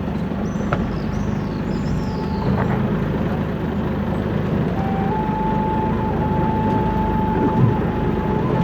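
Sightseeing boat's engine running steadily, a constant low rumble heard on board. A thin steady tone comes in about halfway through.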